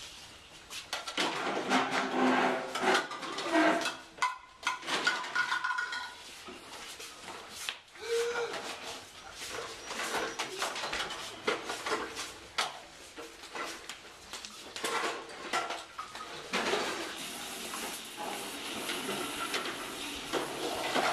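Dishes and cutlery clattering in many small knocks and clinks, with indistinct voices at times.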